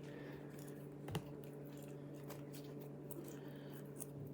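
Faint soft squishing and small clicks of slime being kneaded and poked by hand, over a steady low hum.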